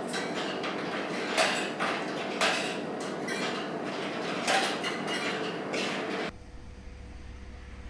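A few sharp clinks and knocks of tableware over a steady room hum; about six seconds in this cuts off abruptly to a quieter low rumble.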